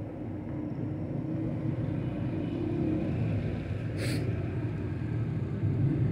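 Low, steady rumble of distant city road traffic, growing slightly louder, with a brief hiss about four seconds in.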